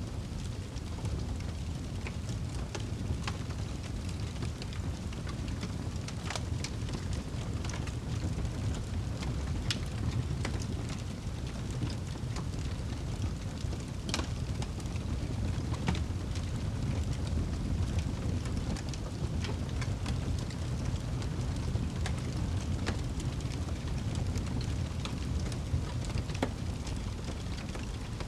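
Fireplace fire crackling: a steady low rumble with scattered sharp pops and crackles at irregular moments.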